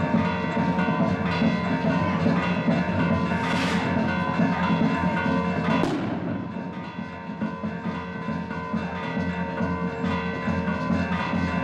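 Bells ringing, with many steady ringing tones overlapping. A rushing whoosh comes about three and a half seconds in, followed by a single sharp bang near six seconds.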